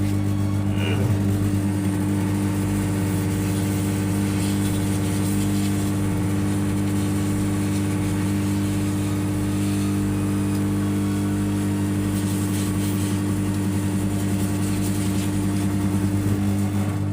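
Hot air rework gun blowing steadily, a loud even motor hum, drying a freshly washed phone.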